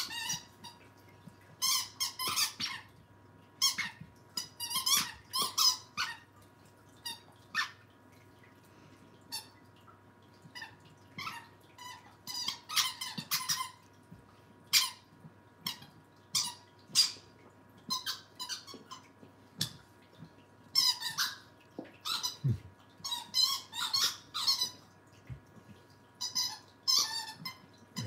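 A dog's squeaky toy squeaked over and over in short high-pitched bursts, sometimes one squeak, sometimes a quick run of several, with pauses between, as a Scottish Terrier puppy plays with it.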